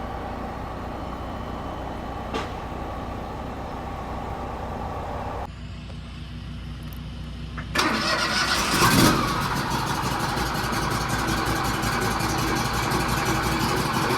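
An engine running steadily. About eight seconds in, a much louder engine sound starts suddenly, surges briefly, then runs on at a fast, even beat.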